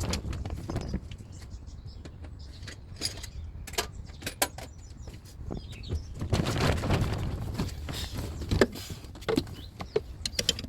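Scattered clinks, clicks and knocks of hand tools and metal parts being handled in a car's engine bay during turbocharger removal, over a steady low rumble. The knocks come thickest between about six and nine seconds in.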